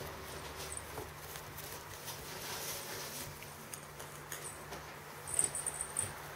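Ferret scrabbling and tussling with a cloth toy on the fabric floor of a play tunnel: soft patter, scratching and rustling. A quick run of sharp, high clicks, the loudest part, comes about five seconds in.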